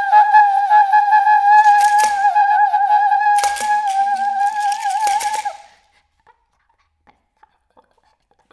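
Solo flute holding one high note with a wavering, bending pitch, broken by sharp clicks, in contemporary extended-technique playing. The note cuts off about five and a half seconds in, leaving near silence with faint ticks.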